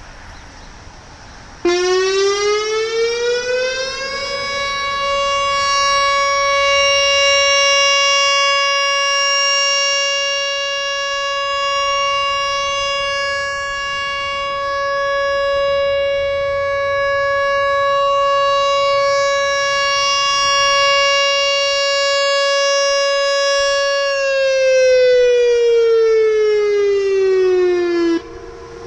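Whelen WPS-3016 electronic outdoor warning siren sounding its steady alert tone in a test: it comes on suddenly about two seconds in, rises in pitch for a couple of seconds, holds one steady tone, then slides down over a few seconds and cuts off near the end.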